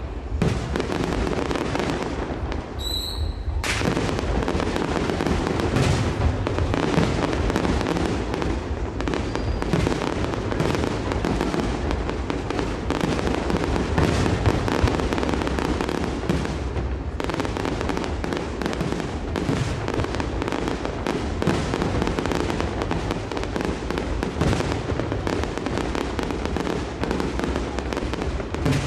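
Fireworks finale: a dense barrage of aerial shells bursting and crackling, bang after bang overlapping without a break. A short high whistle cuts through about three seconds in.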